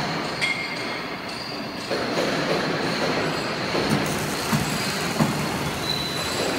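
Empty steel rack cart on casters rattling and clanking over a concrete floor as a small battery-powered tow tractor pulls it. A steady high whine sits under the rattle, and there are irregular clunks.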